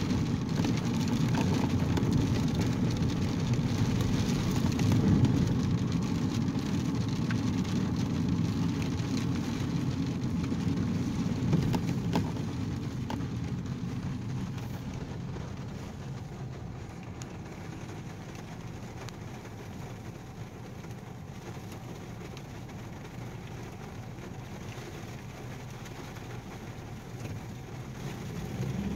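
Car interior noise while driving in the rain: a steady low rumble of engine and tyres on wet road, with rain on the car. It grows quieter after about twelve seconds as the car slows toward an intersection.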